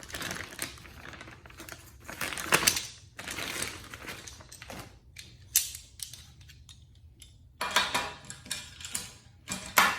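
Steel locking clamp (vise grips) being handled and fitted into a fab table's 5/8-inch hole: scattered metal clicks and clatter, with louder knocks about two and a half seconds in, at five and a half seconds, around eight seconds and near the end.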